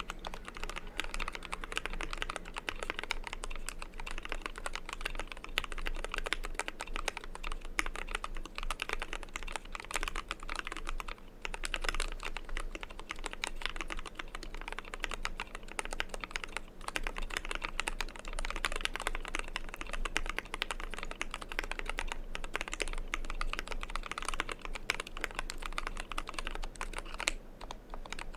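Fast, continuous typing on a custom 60% mechanical keyboard: lubed Zeal Tealios V2 linear switches under PBT dye-sub keycaps, in an aluminium Tofu case with EVA foam under the PCB. The keystrokes come close together, with short pauses about eleven seconds in and near the end.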